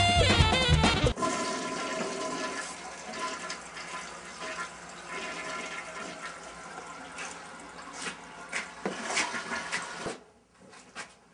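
A toilet flushing: rushing, swirling water that slowly dies away over several seconds. It follows a loud music cue that cuts off about a second in.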